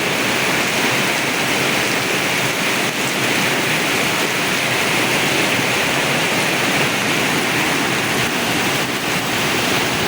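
Heavy rain pouring down steadily, with a fairly strong wind.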